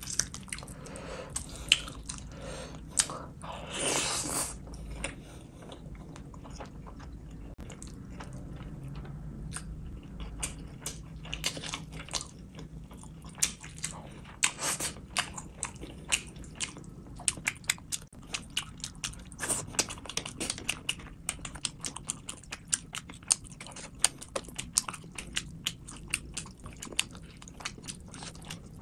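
A person eating whole fish in curry with rice by hand: chewing and wet mouth sounds with many sharp clicks. There is one longer, louder noise about four seconds in.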